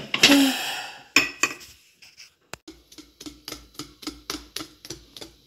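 Metal wire whisk beating waffle batter in a bowl, with melted butter just added. It opens with a loud clatter, then from about three seconds in the whisk clicks against the bowl in a quick, even rhythm of about four to five strokes a second.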